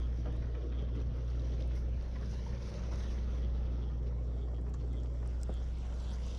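Sportfishing boat's diesel engines running with a steady low hum.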